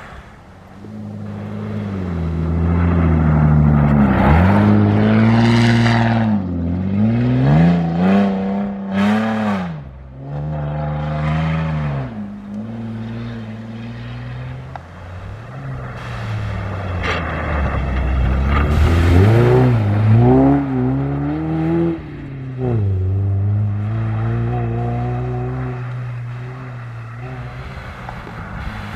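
Rally-raid competition vehicles driving hard on a special stage: engines revving and changing gear, the engine note rising and dipping again and again. The sound grows loud as a vehicle passes, fades around ten seconds in, and grows loud again about two-thirds of the way through.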